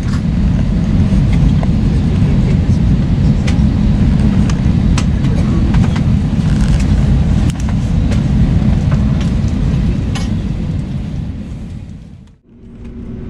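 Airliner cabin noise: a loud, steady deep rumble of the jet engines and the wheels rolling on the ground, with small rattles and clicks from the cabin. It fades away near the end.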